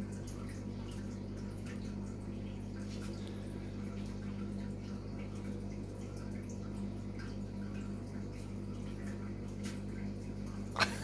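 Steady low hum with faint scattered clicks. Near the end, a sharp click and the start of a short high-pitched call from a pet, a whine or meow.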